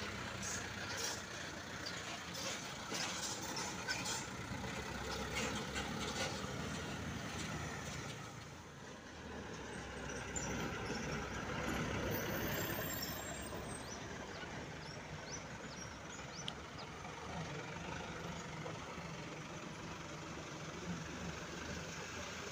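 Light diesel truck engines running at low speed as loaded trucks crawl by over a rough road. The sound dips about eight seconds in, then another truck's engine grows louder as it approaches and settles into a steady low hum.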